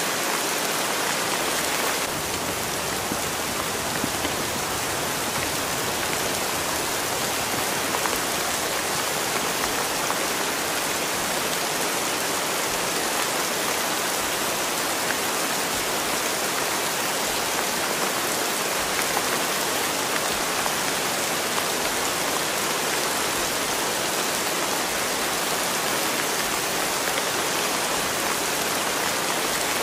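Steady rain falling, an even, unbroken hiss with no pauses.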